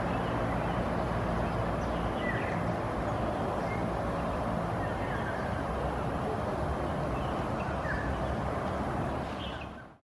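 Steady hum of distant road traffic with a few short, high bird chirps scattered through it; the sound fades out near the end.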